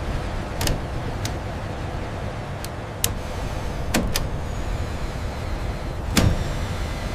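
Assembly-shop machinery ambience: a steady mechanical hum with a scatter of sharp metallic clicks and knocks at irregular intervals, the loudest about six seconds in.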